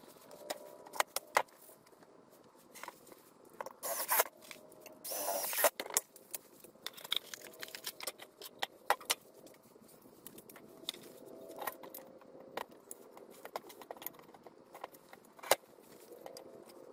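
Scattered clinks, knocks and rattles as galvanized metal leg brackets, screws and treated-lumber legs are handled on a wooden workbench, with a louder scraping rustle about four to six seconds in.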